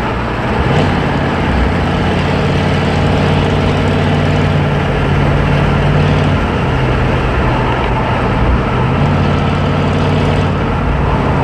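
6.2-litre Detroit Diesel V8 running under way through straight pipes with glass-pack mufflers, a loud, steady low drone. Its pitch steps up about a second in, eases down a little after six seconds and rises again around nine seconds.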